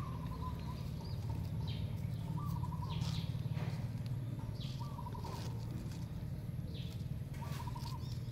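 Birds calling outdoors: several short, high, falling chirps, and a short trilled call that repeats about every two and a half seconds, over a steady low rumble.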